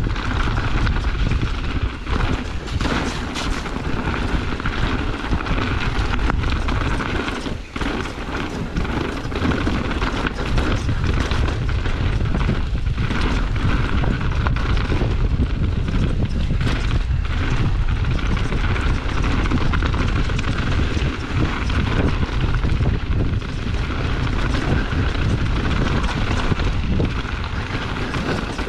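Mountain bike riding fast down a dirt and rock trail: a steady rumble of tyres and bike over the rough ground, with wind buffeting the microphone.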